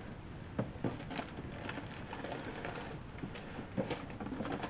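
Handling noise from unpacking a portable typewriter: scattered light knocks and clicks over soft rustling of packing material, the loudest knocks about a second in and near the end.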